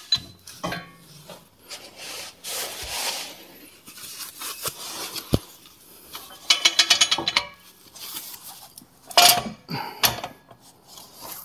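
3-tonne ratchet jack stand being raised by hand under a rock slider, with a quick run of clicks about two-thirds of the way through as the pawl rides over the toothed steel column. Around it are metal scrapes, rubbing and knocks as the column and slider are handled.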